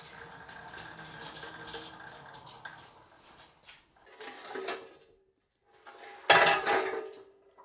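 A wheeled cart rolls across a concrete floor. Then the steel upright of a Max Jax two-post lift clanks twice, the second clang, about six seconds in, the loudest, with a short metallic ring.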